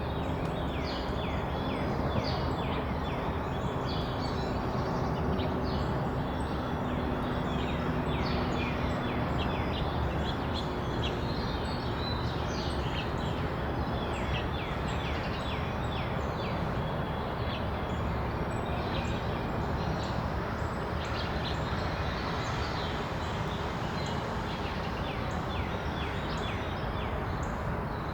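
Many small birds chirping continuously, a dense chatter of short, quick downward chirps, over a steady low background rumble. A faint steady hum holds under it for the first nine seconds or so.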